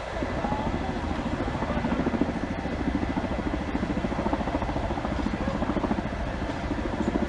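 Firefighting helicopter flying nearby, its rotor making a steady fast chop under a constant engine noise.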